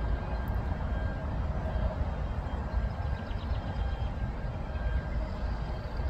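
Steady drone of a honey bee swarm in flight, over an uneven low rumble.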